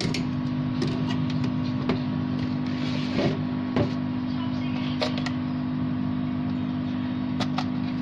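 Steady low hum of workbench equipment, with scattered light clicks and taps as small tools and parts are handled on the bench; two louder knocks come a little past the middle.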